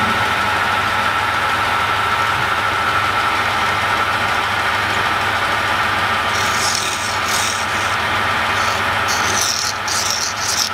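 Metal lathe running steadily with a constant whine while a tool turns a brass part. From about six seconds in, a flat file is drawn across the spinning work in several short rasping strokes.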